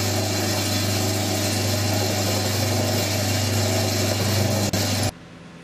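Benchtop drill press running steadily with a low hum, its bit boring a pin hole into a wooden parang handle; it stops abruptly about five seconds in.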